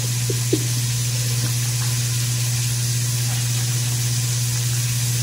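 A steady low hum with an even hiss runs throughout. In the first half-second there are a few faint short drips of juice falling into a bowl.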